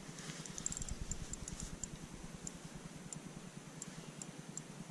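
Spinning fishing reel clicking: a quick run of light ticks about a second in, then single ticks about every half second, over a low wind rumble.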